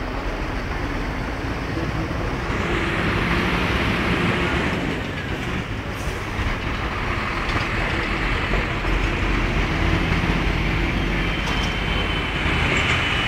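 A heavy truck's engine running close by, a loud steady drone over street noise. A thin high whine joins near the end.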